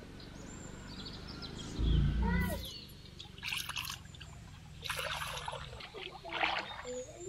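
Water trickling and splashing in several short bursts.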